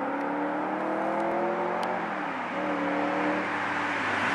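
Superformance Cobra replica's 7.0-litre V8 accelerating through the gears, its pitch climbing, dropping at a gear change about two seconds in, then climbing again.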